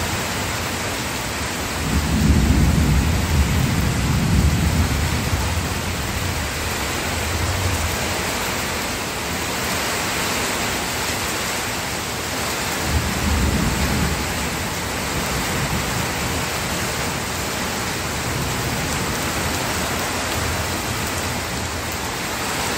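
Steady rain with thunder rumbling twice: a longer roll about two seconds in and a shorter one about halfway through.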